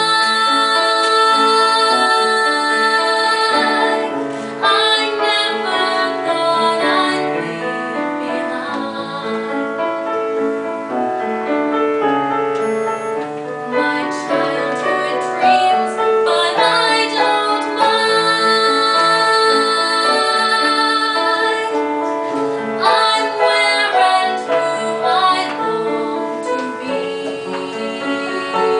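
A woman singing a slow song with piano accompaniment, her voice holding long notes.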